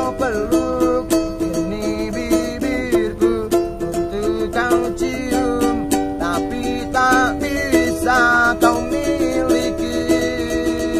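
A kentrung, the small four-string ukulele of Indonesian street buskers, strummed in a steady rhythm through an instrumental passage of a song.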